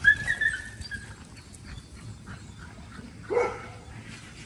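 A retriever dog whining in a high, drawn-out tone for about a second, then giving one short bark about three seconds in.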